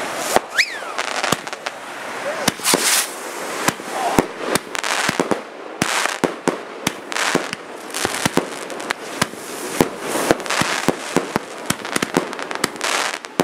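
Fireworks display: a dense, irregular series of sharp bangs from bursting rockets and aerial shells, with crackling and hissing between them. A short falling whistle is heard under a second in.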